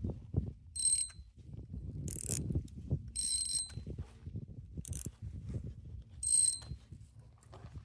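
Fishing reel whirring in five short bursts with a thin high whine, a spool spinning or line being reeled in.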